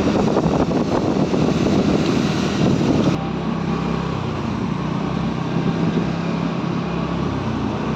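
Riding noise from a TVS Ntorq 125 scooter on a wet road: wind rushing over the microphone with engine and tyre noise. About three seconds in the sound changes abruptly to a steadier, lower engine drone.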